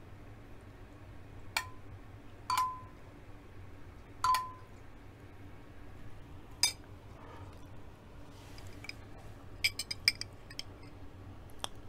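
Metal spoon clinking against glass dishes of soup: several separate sharp clinks, three of them ringing briefly, then a quick run of lighter clicks near the end.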